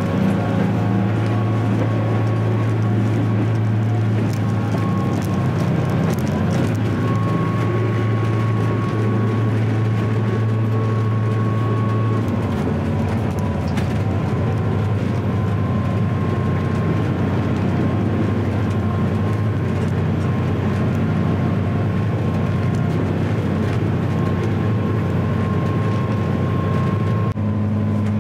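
Volvo Penta D6 380 six-cylinder diesel sterndrive running steadily at planing speed, a low even drone with water rushing past the hull. Its tone shifts slightly about twelve seconds in and again near the end.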